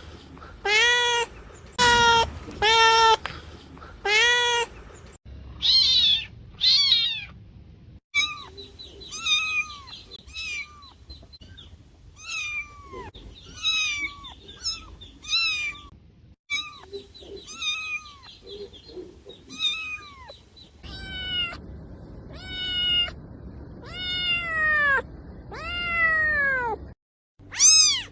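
Domestic cats meowing over and over, a string of separate recordings spliced together: at first loud, even meows about one a second, then higher, shorter mews, and near the end longer drawn-out meows that fall in pitch.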